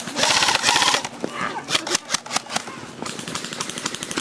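Airsoft guns firing: a loud rapid burst in the first second, a few single shots around two seconds in, then another fast, even stream of shots near the end.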